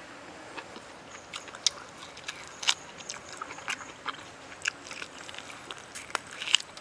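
A person eating grilled beef ribs: irregular crisp bites and chewing, with sharp clicks and crackles coming every fraction of a second to a second, the loudest about two and a half seconds in and near the end.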